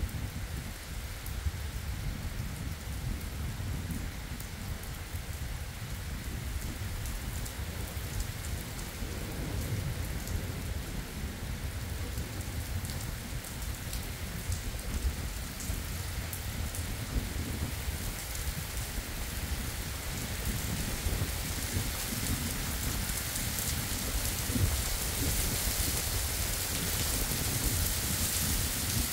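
Heavy rain pouring onto a wet asphalt road during a thunderstorm, with a low rumble of thunder underneath. The rain grows louder and hissier over the last several seconds.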